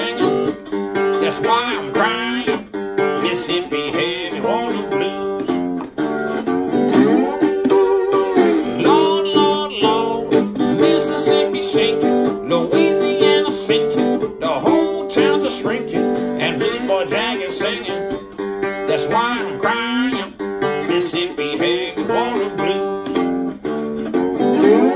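Acoustic guitar playing a blues instrumental break. Picked melody notes, several of them bent up and down in pitch, run over a steady repeating bass pattern.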